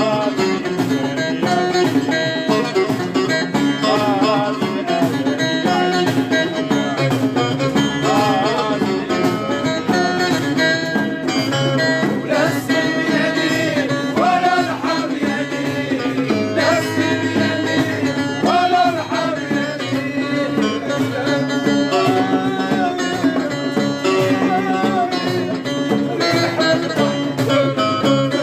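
Live Moroccan folk music: plucked strings and a wavering, ornamented melody line over a steady drone and even rhythm.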